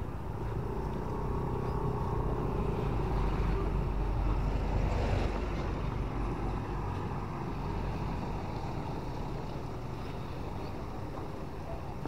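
Road traffic: a motor vehicle's engine growing louder and passing about four to five seconds in, then fading, over a steady low rumble of wind on the microphone.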